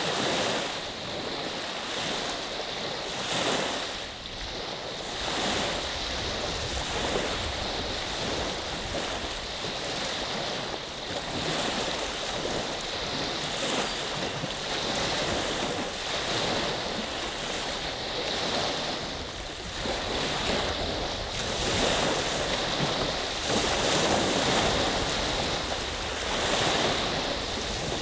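Small freshwater bay waves rolling in and washing on the shore, the wash swelling and falling every few seconds, with wind rumbling on the microphone.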